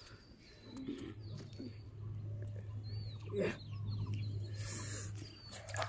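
Birds chirping faintly in short calls over a steady low hum that comes in about a second in. There is one brief falling sound about three and a half seconds in.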